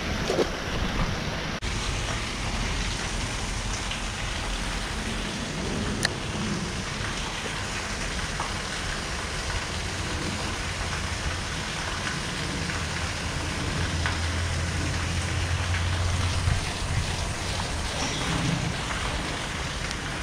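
Steady rain falling: an even hiss with a couple of faint ticks.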